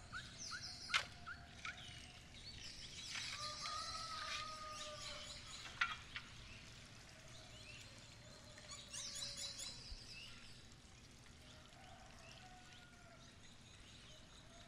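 Birds singing, with short repeated chirps and high trills, over the steady trickle of a small running stream. Two sharp knocks stand out, about a second in and again near six seconds.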